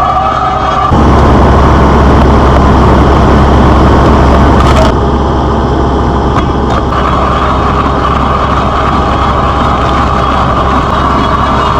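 A Case SV280 skid steer's diesel engine runs under load while a Lowe 12-inch stump planer, turned by a Lowe BP230 hydraulic auger drive, grinds into a wood stump. The grinding gets louder about a second in and eases back about five seconds in, leaving the machine running steadily.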